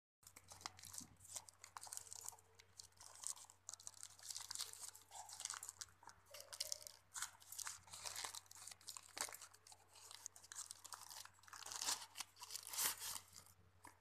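Plastic mailer pouch crinkling and crunching as it is cut with scissors and pulled open by hand, a dense run of irregular crackles.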